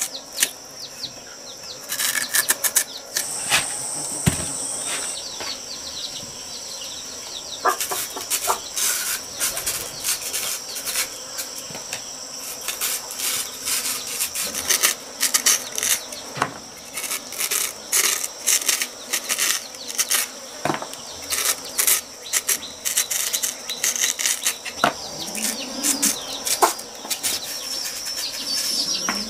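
A cleaver shaving the skin off a purple yam: many short scraping strokes, coming thick and fast through most of it, over a steady high buzz of insects.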